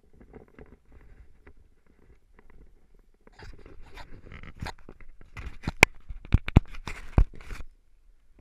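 Clothing and boots scuffing and scraping on rough rock as a climber shifts and scoots down a boulder slope. Faint rustling at first, then louder scraping and crunching from about three seconds in, with several sharp knocks in the second half.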